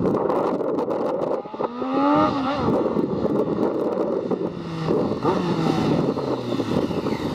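Sport motorcycle with an aftermarket exhaust accelerating toward the listener from a distance, its engine pitch rising about two seconds in, then running on more steadily as it comes closer.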